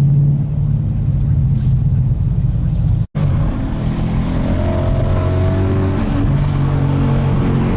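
Tuned 2017 Ford Mustang GT's 5.0-litre Coyote V8 running at light throttle with a steady low drone. The sound drops out for an instant about three seconds in, then the engine note climbs slowly.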